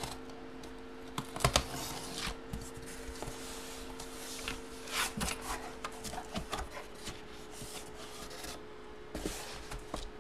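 Hands handling a cardboard box and its packaging: rubbing, sliding and scraping with scattered sharp taps and clicks, the loudest about a second and a half in. A faint steady electrical hum sits underneath.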